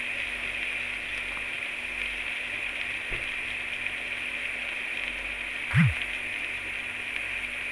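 Whole marinated chicken sizzling steadily in a Saladmaster pan with no oil, its own juices spitting against the hot metal. A brief knock comes about six seconds in.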